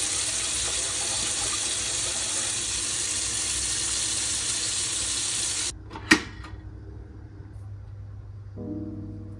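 Kitchen tap running full into a sink while rice is rinsed in a pot, a steady splashing rush. It cuts off suddenly a little past halfway, followed by one sharp knock, and gentle music with piano-like notes begins near the end.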